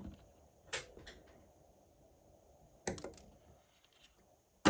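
A few separate sharp clicks from small-tool work on the battery's nickel tabs: one about a second in, a short cluster around three seconds, and the loudest at the very end.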